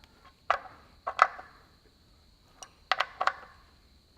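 Sharp metallic clicks and knocks of a ratchet and socket being worked on the bolts of a seal housing, in small groups of two or three with short gaps between.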